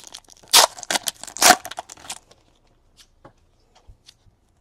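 Trading cards and their plastic packaging being handled: a run of crinkling and rustling in the first two seconds, then a few faint light ticks.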